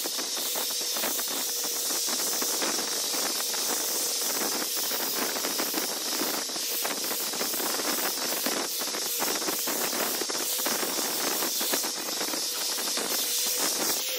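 Handheld electric orbital sander running steadily over the end grain of a wooden cutting board during fine final-grit sanding: an even rushing whir with a faint steady motor tone, stopping right at the end.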